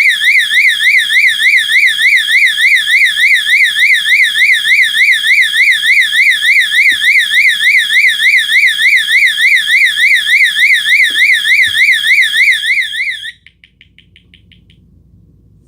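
Fire alarm sounding a fast warbling tone that sweeps up and down several times a second, much like a police siren's yelp. It cuts off about 13 seconds in.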